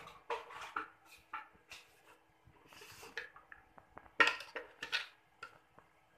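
Irregular light knocks and clinks of an aluminium wok being handled on a gas stove, the loudest cluster about four seconds in.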